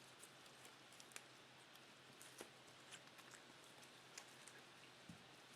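Faint, scattered light clicks and taps of trading cards being handled and stacked, a few a second, over a low steady hum.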